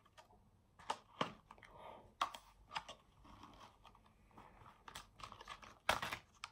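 Plastic and foil toy packaging crinkling and rustling in the hands, with scattered sharp crackles and small tearing sounds; the loudest comes near the end.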